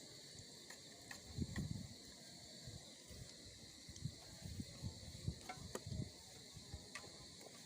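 Steady high-pitched chirring of insects, likely crickets, with scattered low bumps and a few short clicks over it.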